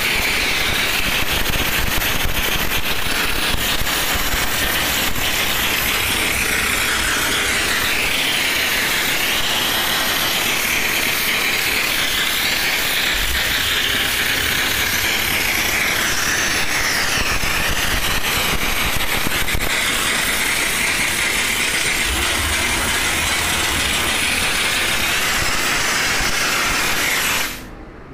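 Steam car-wash machine's wand jetting steam: a loud, steady hiss over a low machine rumble, cut off suddenly near the end as the spray stops.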